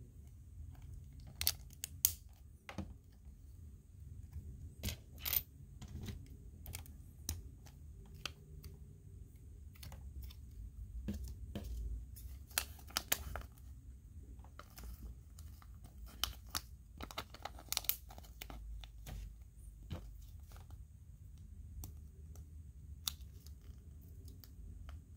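Lego plastic pieces being handled and pressed together: scattered sharp, irregular clicks and light clatter.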